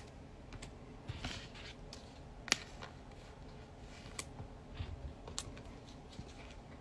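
Faint handling noises in a quiet room: a brief rustle a little over a second in, and a few light clicks spread through, the sharpest about two and a half seconds in.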